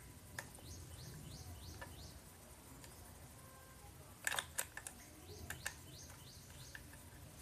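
Sharp metallic clicks and taps of a hex key working on a small chainsaw's housing, a quick cluster of them about four seconds in. A bird chirps in the background in two runs of short falling notes.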